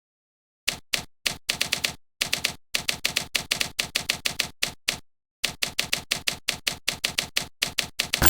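Rapid typing: sharp key clicks, about six to eight a second, in runs broken by short pauses.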